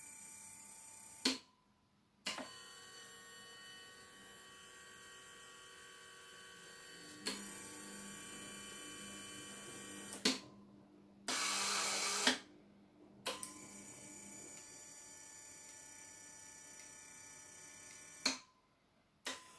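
Small electric motors of an automated model excavator whining as it slews and works its bucket. They start and stop in several stages with a click at each switch. A louder rough noise lasts about a second midway.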